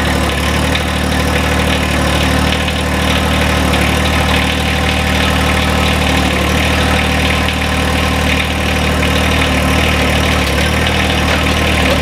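John Deere 1025R compact tractor's three-cylinder diesel engine running steadily at idle, with no revving.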